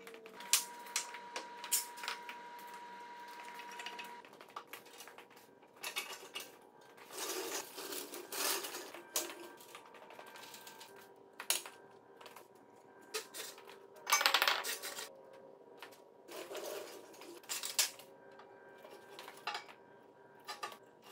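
Heavy steel table frame and engine crane clanking and clinking as the table is lowered and shifted, a string of irregular sharp metal knocks, some leaving a ringing tone hanging for a few seconds.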